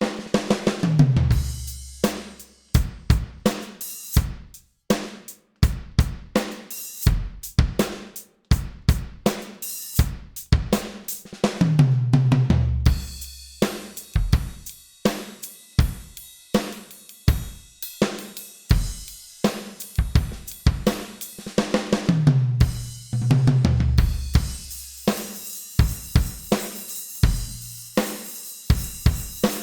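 Drum kit groove with a tom fill running down the toms about every eleven seconds. The kick, snare and toms are electronic pads triggering sampled drums, and the low-volume hi-hat and cymbals are picked up by a single condenser mic.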